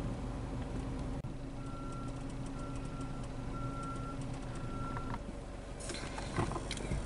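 Steady rumble of a car driving on a wet road, heard from inside the cabin. From about a second and a half in, an electronic beep sounds four times, about once a second, then stops.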